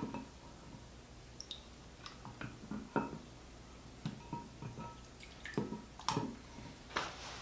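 Stitched leather sheath being dipped and lifted in a glass jug of warm water: faint, irregular splashes, drips and wet squishes as the leather soaks to soften for wet moulding.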